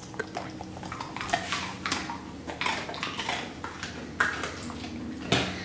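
A run of light, irregular clicks and taps, a few of them sharper, over a faint steady hum.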